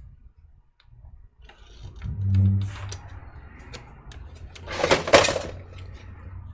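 Handling noise from taking apart a small desktop PC: scattered light clicks and knocks of parts, a brief low hum about two seconds in, and a louder scraping rustle around five seconds in.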